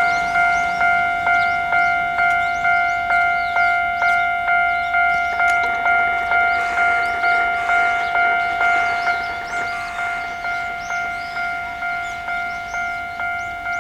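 Japanese railway level-crossing warning bell ringing, an electronic bell tone struck a little under twice a second, the signal that a train is approaching.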